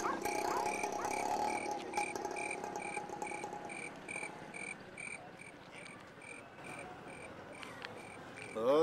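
Night ambience of a cricket chirping in an even pulse, about two chirps a second, over frog croaking that fades out in the first half. A short wavering pitched cry comes in at the very end.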